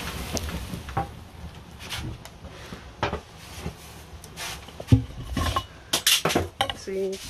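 The rushing hiss of ignited aluminium powder flaring dies away right at the start, leaving flames burning with scattered sharp knocks and clinks, the loudest about five seconds in and several more around six seconds.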